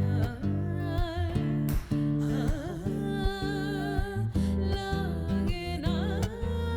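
Music: an instrumental stretch of a Hindi film song, with plucked guitar under a wavering melody line.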